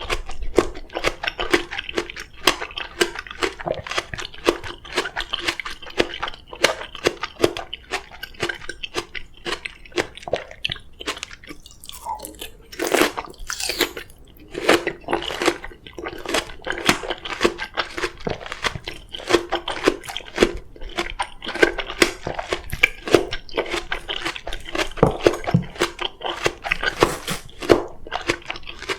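Close-miked chewing of crisp oriental melon (chamoe): a continuous run of wet crunches and clicks.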